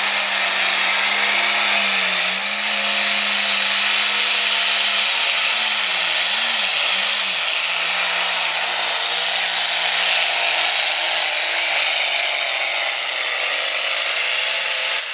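Modified John Deere 4450 pulling tractor's turbocharged diesel engine running flat out under heavy load as it drags a weight transfer sled. The sound is loud and steady, with a brief rising whistle about two seconds in, and the engine's pitch wavers about six seconds in.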